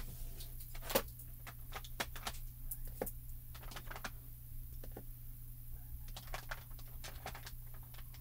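Scattered small clicks and taps of crafting supplies being handled and set down on a desk: a clear acrylic stamping block and small plastic Altenew mini ink pad cases, with a sharper knock about a second in. A steady low hum runs underneath.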